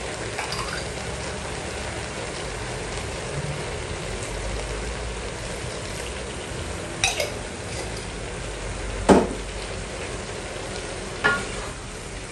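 Vegetables sizzling steadily as they stir-fry in a wok, with three sharp knocks of a utensil against the pan, the loudest about nine seconds in, and stirring with a wooden spatula near the end.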